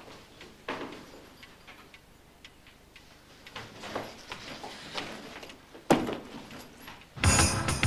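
A woman's high-heeled footsteps clicking on a hard floor and steps, a few separate steps with pauses between them, and a single sharper knock about six seconds in. Loud music begins just before the end.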